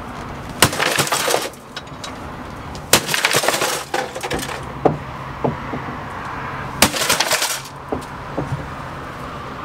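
A 6-pound sledgehammer striking the sheet-metal chassis of an old DVD/VCR combo player: three heavy blows about three seconds apart, each followed by about a second of rattling, with a few smaller knocks between them.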